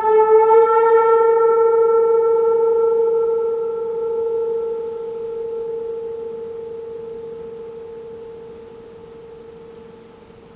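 A metal meditation instrument ringing out: one steady pitched tone with fainter higher overtones. The high overtones die away within the first few seconds, and the main tone fades slowly until it is faint near the end.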